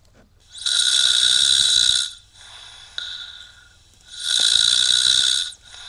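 Recorded snoring played back from an Adafruit soundboard through small speakers: two loud snores about three and a half seconds apart, with a quieter breath between them.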